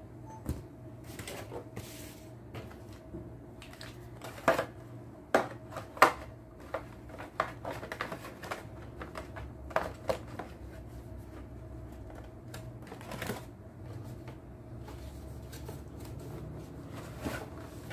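Hands handling a gimbal stabilizer and its cardboard box: irregular clicks, taps and rustles, over a steady low hum.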